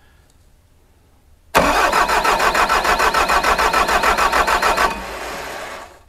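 Doosan D34 four-cylinder diesel cranking on the starter for about three seconds, an even chug of about six compression pulses a second, without firing, then cutting off. The no-start comes from low rail pressure: injectors leaking too much fuel back to the return for the pump to build pressure.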